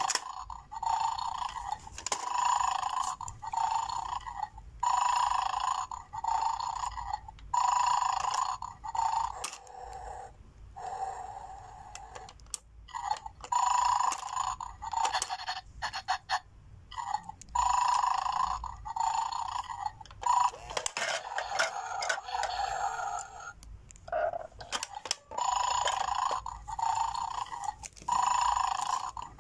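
Electronic sound effect from a battery-powered bulldog toy's speaker: a buzzy tone pulsing in short bursts, in groups with brief pauses, while the dog guards its bones.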